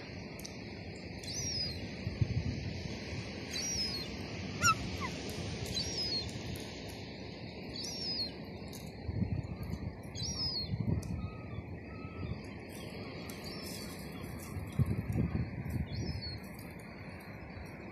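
Herring gulls calling: a short, high call repeated every two to three seconds, with low rumbles of wind on the microphone now and then.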